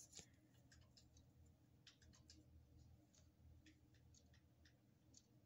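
Near silence with a few faint, scattered clicks of a plastic Lego minifigure being picked up and handled.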